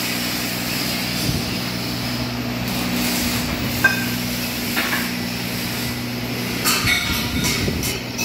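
Steady low machine hum in a steel furniture workshop, with scattered metallic clanks of square steel tube parts being handled. The loudest is a sharp, ringing clank about halfway through, and a few more clinks come toward the end.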